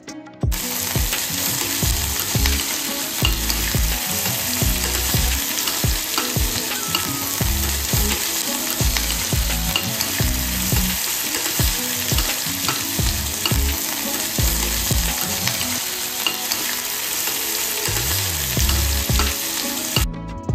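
Sliced onions sizzling in hot oil in a stainless steel pressure cooker, stirred with a steel spoon that scrapes and knocks against the pan. It starts abruptly about half a second in and stops just before the end.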